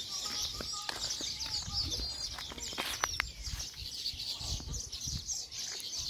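Many small birds chirping rapidly and continuously in a dense chorus, over a low rumble of microphone handling noise, with a few sharp clicks about three seconds in.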